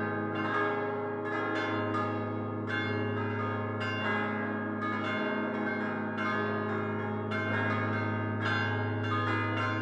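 Solemn full peal of five church bells cast by Prospero Barigozzi in 1928, fixed to their headstocks and rung by hand-swinging the clappers against them. Rapid overlapping strikes, several a second, ring on over a steady low hum.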